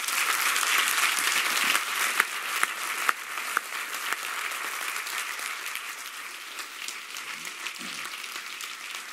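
Audience applauding. It starts suddenly, is loudest for the first two seconds and then slowly tapers off.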